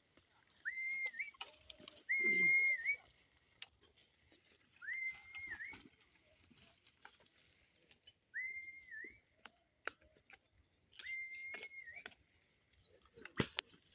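A whistled note repeated five times, each sliding up and then held for a second or less, a couple of seconds apart, with a few faint clicks between.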